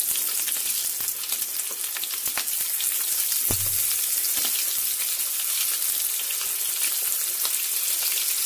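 Meat boti rolls deep-frying in hot oil: a steady sizzle full of small crackles and pops, with one soft knock about three and a half seconds in.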